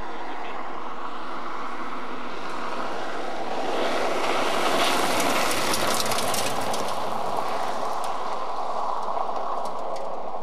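A rally car passes at speed on a gravel road. Its engine and tyre noise swells to a peak about five seconds in as it goes by, with a spray of loose gravel clattering, then fades as it drives off.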